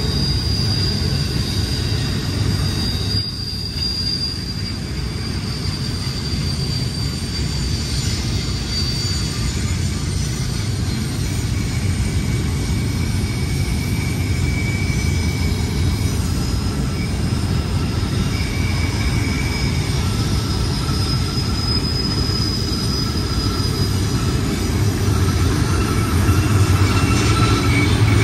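Freight train rolling past with a steady heavy rumble of wheels on rail, with faint high-pitched wheel squeal coming and going as the cars work through the curve; slightly louder near the end.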